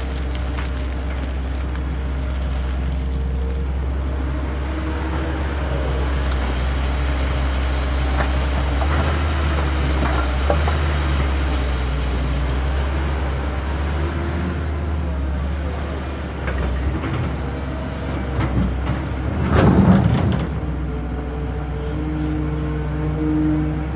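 CAT excavator's diesel engine running steadily with a deep drone, with a short, louder rattling burst about twenty seconds in.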